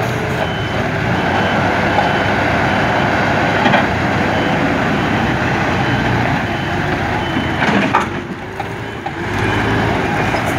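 Diesel engine of an MST M544 backhoe loader running under load while the front bucket works, with a reversing alarm beeping in the first few seconds. The engine note dips and swings in pitch briefly about eight seconds in.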